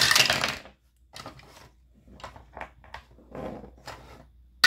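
Dice rolled onto a hard surface: a six-sided and an eight-sided die clatter loudly for about half a second, followed by a few light clicks and knocks, then another loud clatter right at the end.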